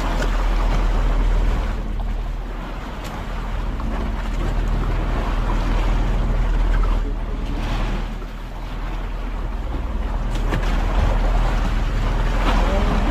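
Steady low drone of the outrigger boat's engine, with waves washing around the hull and wind noise swelling and ebbing every few seconds.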